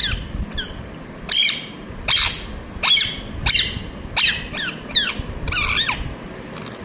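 Parrot calling: a run of about ten short, sharp squawks, one every half second or so.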